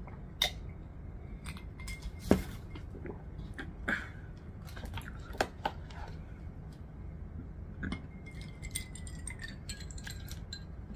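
A drinking glass and a plastic water bottle handled on a plastic-covered table: scattered clinks and knocks, the loudest about two seconds in. Near the end, water is poured from the bottle into the glass.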